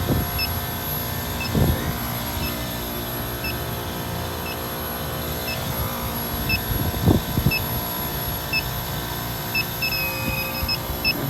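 Electronic refrigerant leak detector (INFICON D-TEK) ticking with short high beeps about once a second, its idle search rhythm, with one longer held beep near the end. Underneath is the steady hum of refrigeration machinery, and there are a few low thumps.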